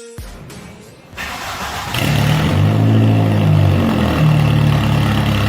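A car engine starts about two seconds in, its pitch shifting briefly before it settles into a steady idle.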